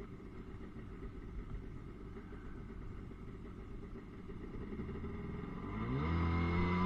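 Personal watercraft engine running at a low rumble at idle speed, then throttled up about five seconds in, rising in pitch and getting louder before holding a steady higher note.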